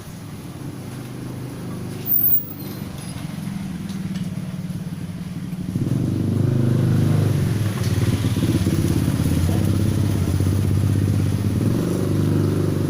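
A vehicle engine running steadily, growing louder about six seconds in and staying there. There is a brief sharp noise just after two seconds.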